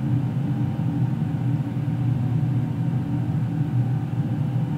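Steady low-pitched hum with no breaks or clicks, the background drone of the recording.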